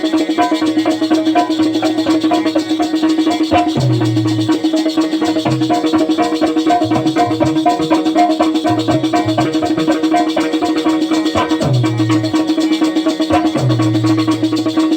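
Instrumental Bundeli rai folk music: fast rhythmic drums and rattling percussion over a steady held tone and a low bass line, with no singing.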